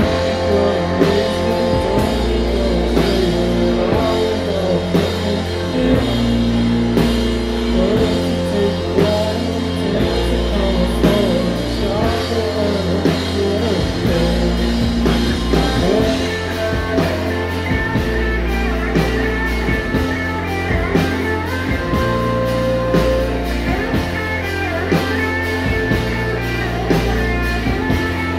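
A rock band playing live: two electric guitars, bass guitar and drum kit, with the drum hits growing busier about halfway through.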